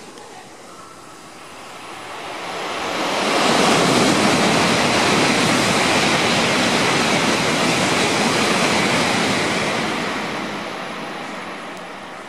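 A Shinkansen bullet train passing through the station at speed without stopping. It is a loud, even rush that builds over about three seconds, holds for about six, then fades as the train goes away.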